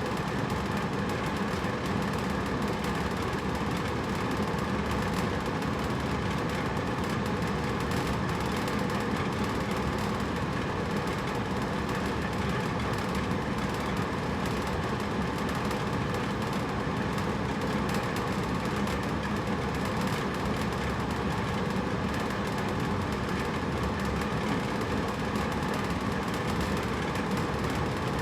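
Hotel-room air conditioner running steadily: an even rush of air over a low, constant hum.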